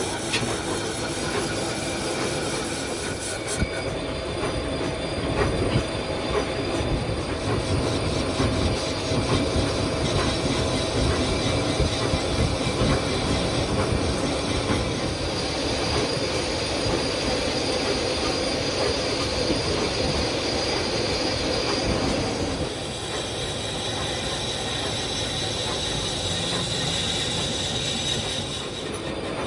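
Metal lathe turning a cast timing-gear blank: the cutting tool scrapes steadily across the face of the spinning casting over the lathe's running gear, with a thin high squeal through much of the second half.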